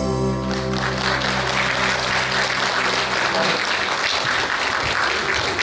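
Audience applauding as the song's final held chord dies away; the clapping starts about half a second in and the chord is gone by about three and a half seconds.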